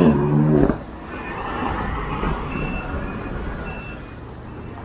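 Roadside city traffic: a steady mix of passing engines and tyre noise with a low hum. A loud pitched sound, a horn or a voice, cuts off abruptly under a second in.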